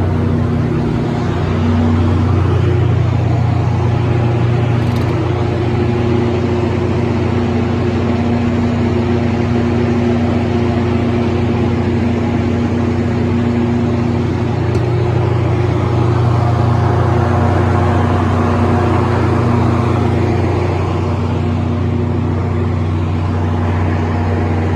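John Deere 6081AF001 inline-six diesel engine of a Kohler 180 kW generator set running steadily at constant speed.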